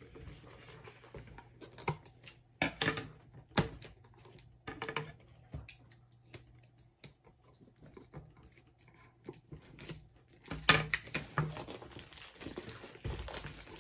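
Scissors cutting the plastic shrink wrap on a cardboard trading-card box, with the wrap crinkling as it is handled and pulled off: scattered sharp snips and rustles, and a busier burst of crinkling and handling near the end.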